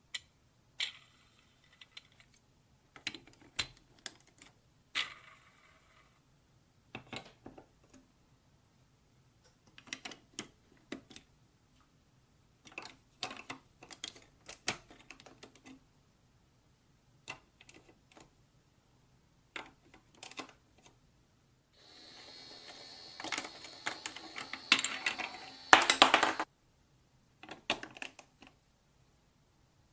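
Marbles clicking and clattering on a plastic marble run, in scattered taps and short rattles. A steady rolling sound builds from about three quarters of the way in and ends in the loudest clatter.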